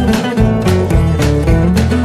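Background music: acoustic guitar strumming with a steady beat.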